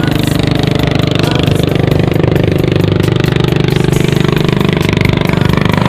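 A small engine running steadily with a rapid, even pulse.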